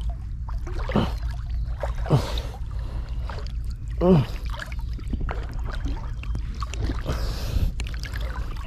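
Water sloshing and splashing as people wade through a tidal river, over a steady low rumble. A few short sounds glide downward in pitch, the loudest about four seconds in.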